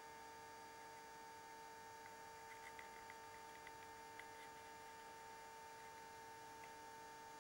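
Near silence: a steady electrical hum, with a few faint light ticks about two to four seconds in.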